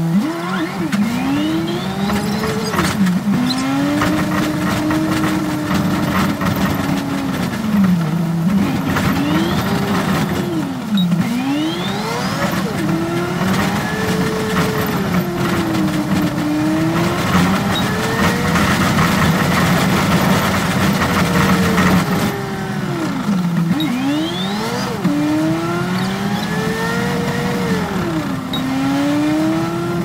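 Yutong ZK6831HGA city bus engine heard from the driver's seat while the bus is under way and picking up speed: the engine note climbs and falls several times, dipping sharply now and then, with a higher whine rising along with it over steady road and tyre noise.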